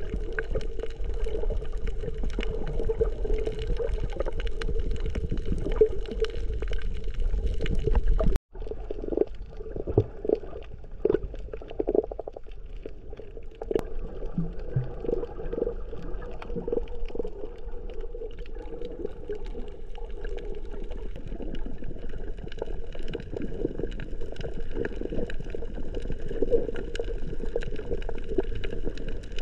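Water sloshing and gurgling close to the microphone over a steady hum, broken off for an instant about eight seconds in.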